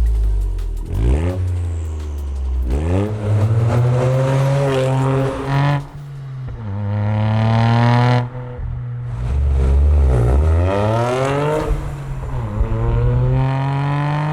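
Gen II Toyota GR Yaris turbocharged 1.6-litre three-cylinder through a Scorpion stainless steel aftermarket exhaust, accelerating through the gears. The engine note climbs in pitch, drops sharply at each upshift and climbs again, about five times.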